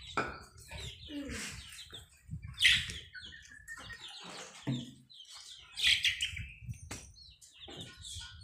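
Domestic chickens clucking and calling in short bursts, with two louder calls about a third of the way in and again about three-quarters through, and a single sharp knock shortly after.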